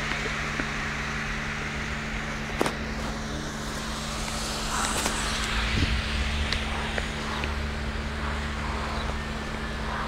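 Steady engine hum with road traffic noise and a few sharp clicks; a deeper rumble swells about six seconds in and lasts a few seconds.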